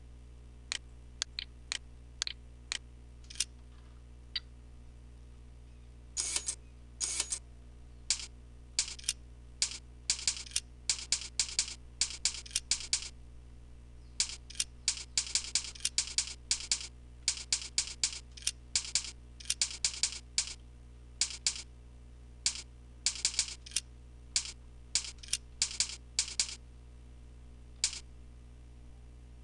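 Clicking at a computer: a few sparse, light clicks, then from about six seconds in a long run of sharp clicks, many in quick pairs about once a second, over a steady low hum.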